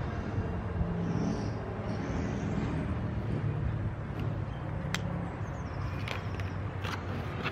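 Outdoor ambience with a steady low rumble of distant road traffic. Paper and small stationery are handled on a table, with soft rustles and a few light clicks in the second half.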